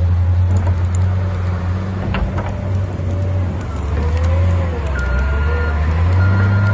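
Motor vehicle engine running, a steady low drone with faint higher whines wavering above it.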